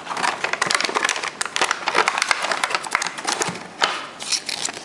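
Plastic packaging crackling and crinkling in quick, irregular clicks as a boxed puzzle cube is handled and unwrapped.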